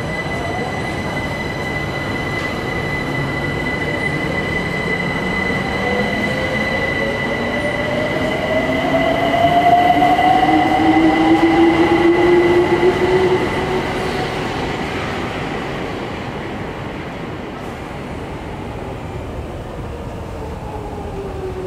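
London Overground Class 378 electric train pulling out of the platform: its traction motors whine, rising in pitch as it gathers speed, loudest about ten seconds in, then fading away.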